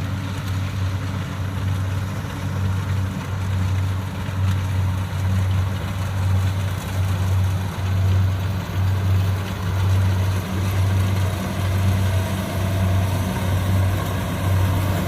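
Diesel engines of rice combine harvesters running steadily under load in a rice field: a low drone that swells and fades slightly every second or so.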